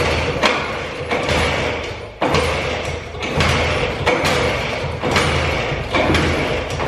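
WSK 125 two-stroke single-cylinder motorcycle being kick-started again and again, about eight kicks, each one turning the engine over with a thump and a brief low rumble but never firing. The engine will not catch, which the riders take for a flooded engine after long standing, or else low compression.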